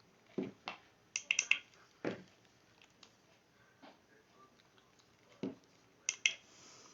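Scattered clicks and knocks from a portable mini blender being handled, with a quick run of clicks about a second in; the blender's motor is not running, having failed to start.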